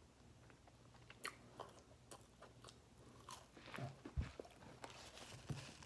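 A person biting into and chewing a crispy McDonald's chicken nugget: faint, irregular crunches and clicks.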